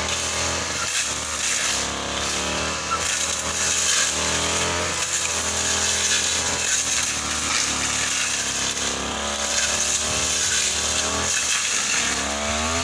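Two-stroke brush cutter running under load, its blade cutting into a tree; the engine note wavers up and down as the blade bites into the wood.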